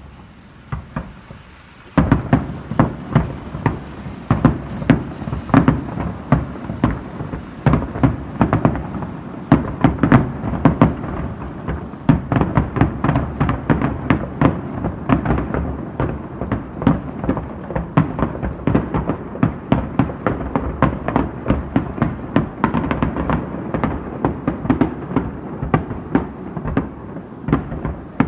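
Fireworks display: a couple of single bangs, then from about two seconds in a dense, rapid barrage of firework bursts and bangs that carries on without a break.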